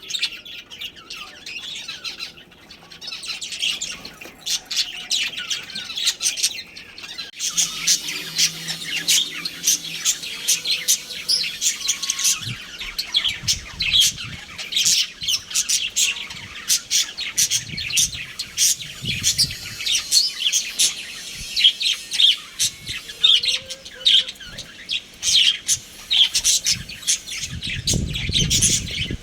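Several budgerigars chirping and chattering in quick, high, overlapping calls, which grow busier about seven seconds in. A brief low rumble comes near the end.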